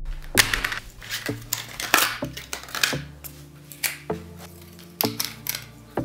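Irregular metallic knocks and clanks of steel parts and tools being handled on a steel-topped workbench, each hit followed by a short ring.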